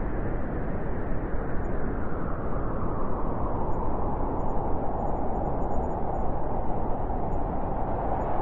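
Blizzard wind blowing steadily, a dense rushing noise. A howling band grows stronger past the middle.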